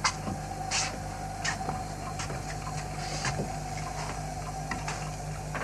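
A person handling objects in a wooden room: a dozen or so irregular clicks and knocks over a steady background hum.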